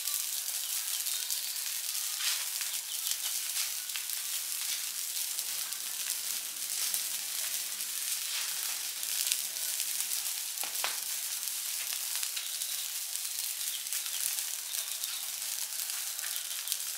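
Burning trash pile crackling and hissing, with a steady hiss full of small pops and a sharper crack about eleven seconds in.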